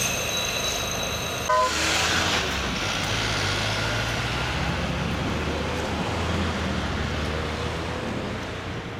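Heavy-haul truck convoy driving by, its diesel engines running with a steady low rumble and road noise, and a short horn toot about a second and a half in. The sound fades near the end.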